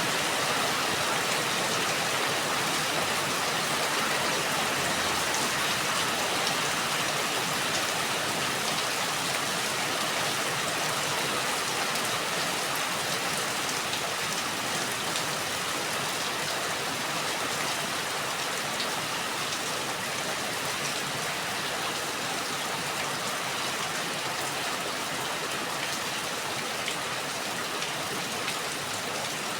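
Steady rain falling, an even hiss with a few separate drop ticks near the end.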